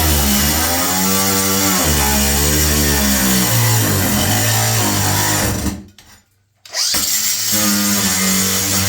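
Milwaukee M18 cordless power tool cutting. Its motor pitch sags and recovers under load, and it stops for about a second near the middle before starting again. The owner thinks the battery is dying.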